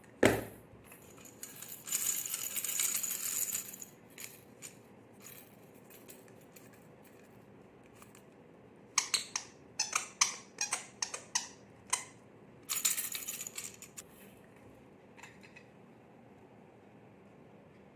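Baby rattle toys shaken in short spells: a thud at the start, a rattle lasting about two seconds, then a quick run of sharp clicks around the middle and a second brief rattle, with quiet gaps between.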